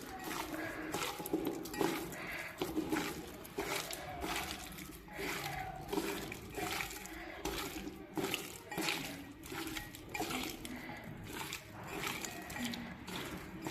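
Kitchen work sounds: water sloshing and splashing, with dishes and utensils clinking and knocking irregularly throughout.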